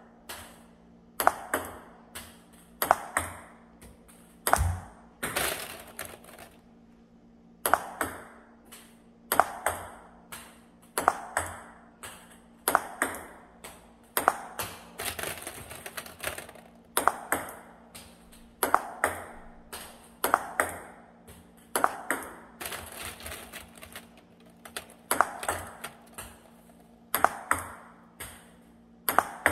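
Table tennis ball clicking off the table and a paddle's rubber in repeated backhand flicks. Each stroke gives a quick cluster of clicks, about every one and a half to two seconds, with a short pause around seven seconds in.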